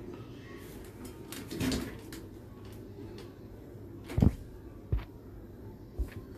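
A few knocks of a slotted skimmer against a frying pan, the loudest about four seconds in, over faint crackling of jalebi frying in hot oil.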